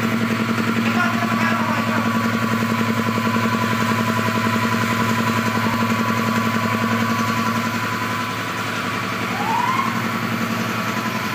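Power Craft 2 HP twin-cylinder air compressor running: a steady electric motor hum under the fast, even pulsing of the pump, dipping slightly about eight seconds in.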